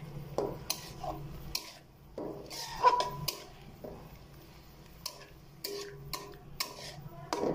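A spatula stirring and scraping chopped chicken and onion frying in an aluminium pan, with irregular scraping strokes about once a second. The loudest is a sharper clank with a short ring about three seconds in.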